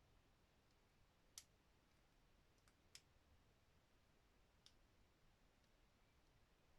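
Four faint, sharp clicks of hard plastic action-figure parts being handled and pushed into place, the sharpest about a second and a half in, over near silence.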